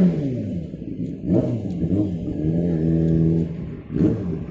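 A vehicle engine revving: its pitch falls, climbs again, holds steady for about a second, then climbs once more near the end.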